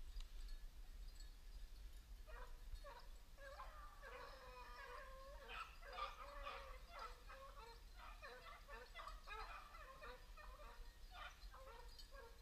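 A pack of beagles baying faintly while running a rabbit, several dogs' short yelping calls overlapping from about two seconds in.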